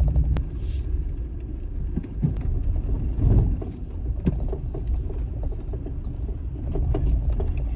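Car rumbling slowly from the road onto a rough, stony dirt track, heard from inside the cabin, with scattered light knocks and rattles.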